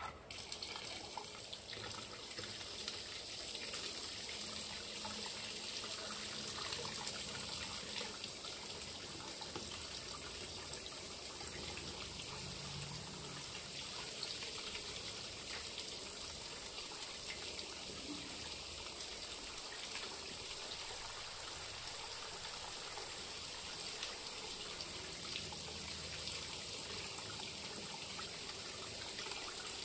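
Tap water pouring in a steady stream into a water-filled metal pot in a sink, splashing on the surface. The flow comes on within the first couple of seconds and then runs evenly.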